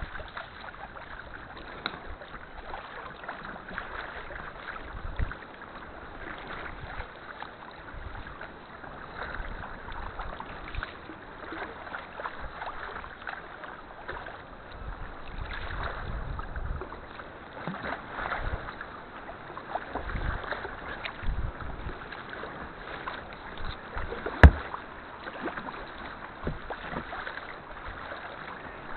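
Kayak paddle strokes splashing in sea water, with water sloshing around the boat, in an uneven rhythm. A single sharp knock sounds near the end.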